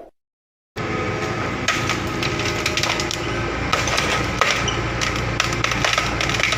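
Heavy excavator's diesel engine running steadily, with scattered sharp metallic clanks and knocks over it. It cuts in abruptly under a second in, after a short chime and a moment of silence.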